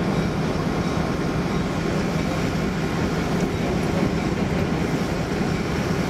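Union Pacific E9 passenger diesel locomotive running steadily, a loud, even drone from its twin EMD 567 diesel engines.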